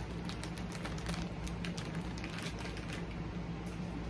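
Plastic candy bag crinkling and crackling as a hand rummages in it for gummies, a string of small irregular crackles over a steady low hum.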